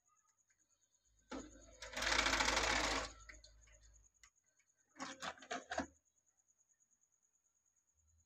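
National NV-G30 VHS video cassette recorder's mechanism: a motor whirs for about three seconds, loudest in the middle, then a quick run of clicks and clunks as the front-loading carriage ejects the cassette.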